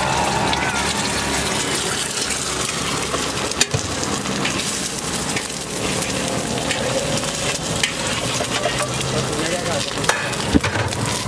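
An egg frying on a large flat street-stall griddle, giving a steady sizzle. A few sharp clicks of a metal spatula on the griddle come through, one about a third of the way in and two near the end.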